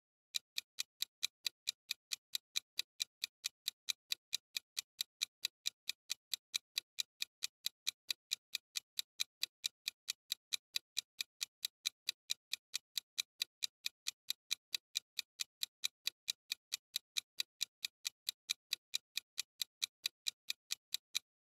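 Clock-ticking sound effect of a countdown timer: rapid, evenly spaced identical ticks that keep a steady rhythm and stop near the end, marking the time left to answer.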